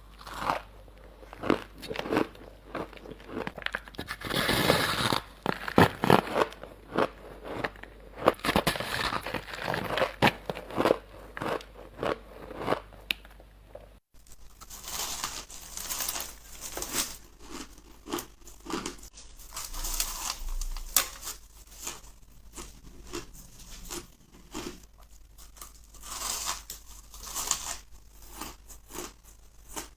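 A person biting and chewing ice close to the microphone: a run of irregular loud cracks and crunches. About halfway through, a cut leads to a different take with crisper, more crinkly crunching.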